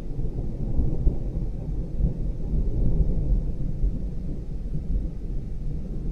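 Thunder rumbling low and steady, a stormy-night ambience with no single sharp crack.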